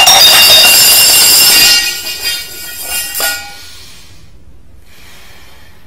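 A sudden, very loud, shrill metallic ringing made of many high tones at once. It holds for about two seconds and then fades out, leaving a quiet room.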